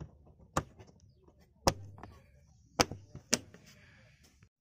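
Plastic push-type trim clips pressed into the boot's carpet trim, snapping into place with four sharp clicks, the middle two the loudest.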